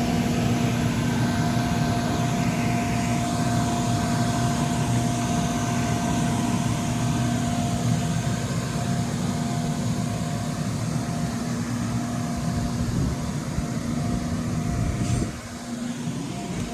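Bounce house's electric inflation blower running steadily, a dense rumble with a steady hum; it drops sharply in level about fifteen seconds in.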